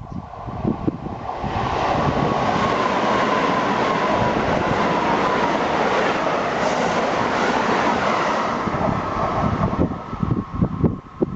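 Keisei 3700 series electric train passing at speed: a loud rush of wheels on rail builds about a second and a half in, holds for several seconds with a whine slowly falling in pitch, then dies away. Over it the level-crossing warning bell keeps ringing, stopping near the end.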